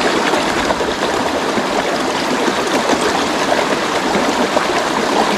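Shallow rocky stream running over stones and small riffles: a loud, steady rush of water.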